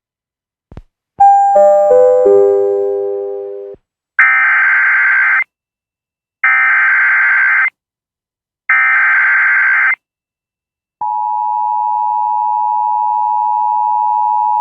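A four-note descending chime, then three Emergency Alert System SAME header data bursts, each just over a second long with short gaps between. About three-quarters of the way through, the steady two-tone EAS attention signal begins and holds.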